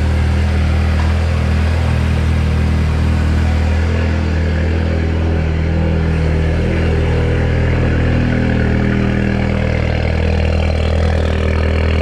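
Seat Leon Cupra's 2.0 TFSI turbocharged four-cylinder engine idling steadily from cold, just restarted after new injectors were fitted to cure a cylinder 1 misfire.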